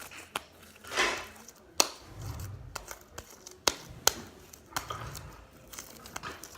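Homemade glue slime being stretched and squished by hand, giving a few sharp clicks and pops spread out over several seconds, with a softer squelch about a second in.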